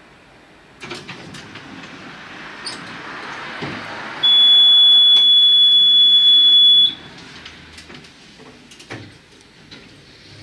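Tatra T6A5 tram's door-closing warning signal: a loud, steady, high beep lasting nearly three seconds, with door mechanism knocks and clunks before it and after it.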